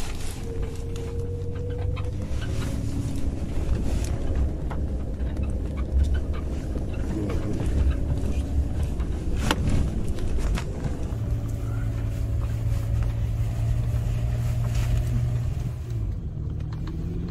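Toyota FJ Cruiser's 4.0-litre V6 running at low speed off-road, heard from inside the cabin. Scattered knocks and rattles come from the body and suspension on rough ground, the sharpest a little past halfway through.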